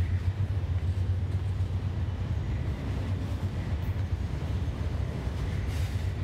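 Freight train of enclosed autorack cars rolling past below, a steady low rumble of steel wheels on rail.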